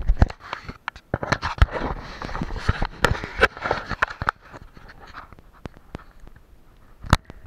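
Rustling, scraping and clicking of a hand or sleeve handling the camera right against its microphone. The noise is dense and loud for the first four seconds, then thins to quieter taps, with one sharp click near the end.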